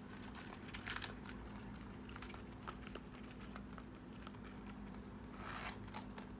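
A small zip coin pouch being handled and zipped closed: soft rustling and light clicks, a short zipping hiss shortly before the end and one sharp click just after it.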